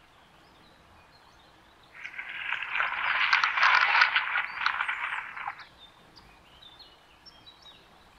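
A loud, rough animal call made of rapid pulses, lasting about three and a half seconds and starting about two seconds in, with faint bird chirps before and after it.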